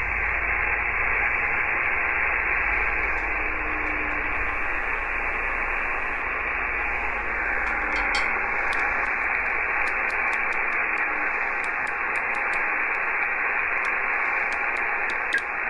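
Icom IC-M700 HF SSB receiver hissing with band noise through its speaker while being tuned across the 40-metre band, the hiss sharply limited to the narrow sideband passband. A faint low whistle drifts past a few seconds in, and from about halfway through come light clicks from the tuning knob.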